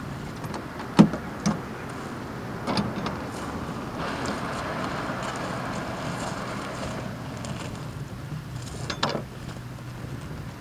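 A VDUBLER camper pod being slid out of the back of a VW van on its runners. A few sharp knocks come in the first three seconds, then a steady sliding rumble from about four seconds in, and two more knocks near the end.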